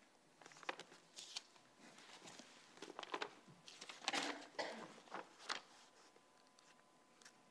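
Thin Bible pages being leafed through by hand: a series of faint, quick paper rustles that die away near the end.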